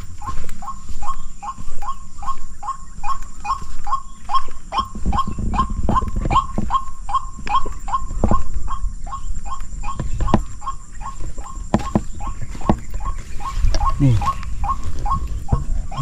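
White-breasted waterhen (ruak-ruak) calling over and over in a steady rhythm, about three short calls a second, with a low rumble underneath.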